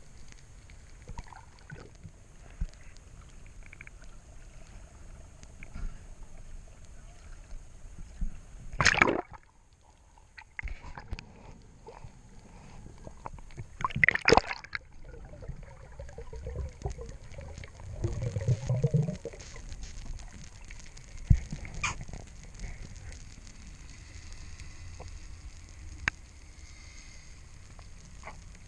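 Water sloshing and gurgling close to the microphone, with scattered small clicks and two loud sudden splashes about nine and fourteen seconds in.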